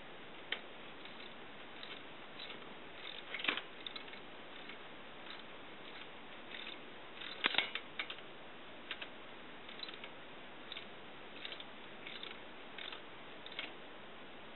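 Socket wrench ratchet clicking in short strokes as a drain-type plug is tightened down, with small clicks and knocks every second or so and the loudest clusters about three and a half and seven and a half seconds in.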